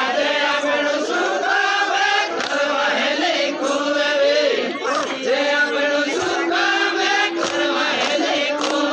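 A group of men singing an Adivasi garba dance chant together in chorus, with long held notes.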